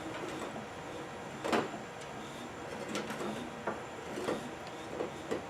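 Scattered short knocks and scrapes of plastic tubing and a data cable being handled and pushed through a faucet hole in a countertop, the clearest about a second and a half in.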